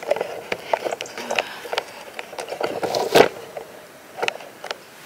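Rustling and irregular crackling and snapping of low wild blueberry shrubs being brushed through, with many short sharp clicks, the loudest about three seconds in.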